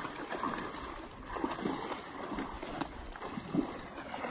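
Shallow marsh water sloshing and splashing irregularly, a few soft splashes a second, as hunters wade through it in waders.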